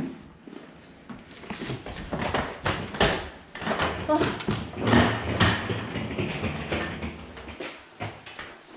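A run of knocks, bumps and rustles from suitcases and a backpack being handled and moved about, busiest in the middle few seconds.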